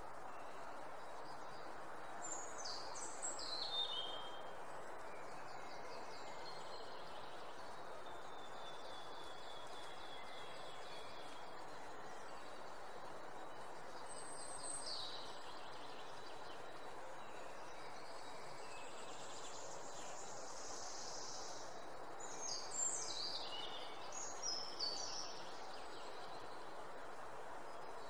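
Songbirds singing over a steady background hiss: a descending trilled phrase about two seconds in, a thin drawn-out whistle and a short call in the middle, and a cluster of several descending phrases near the end.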